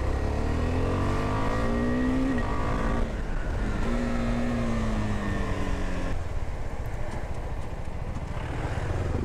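KTM Duke 390's single-cylinder engine revving up as the bike accelerates, with a break in the rising pitch near three seconds in as it changes gear, a second pull that levels off, and the engine closing off after about six seconds as the bike slows.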